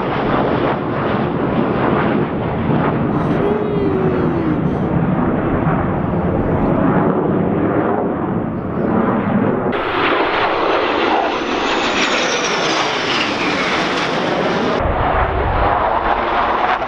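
F-16 fighter jets of a Thunderbirds formation flying overhead with a continuous jet-engine roar. The sound changes abruptly about ten seconds in and again near fifteen seconds. A high whine falls in pitch around twelve seconds.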